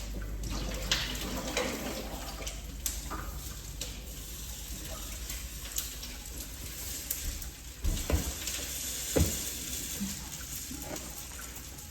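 Water running steadily from a tap into a sink, with a few knocks about eight and nine seconds in.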